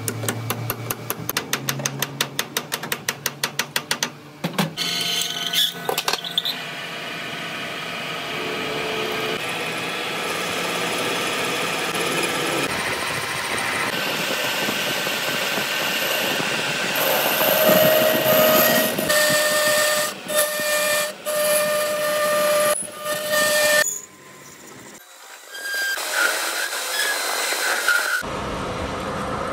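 A quick run of hammer taps on a splined truck pinion shaft as it is seated in a lathe's four-jaw chuck, for about four seconds. Then the metal lathe runs and its cutting tool turns down the end of the steel shaft, a steady dense noise with brief drops in level in its later part.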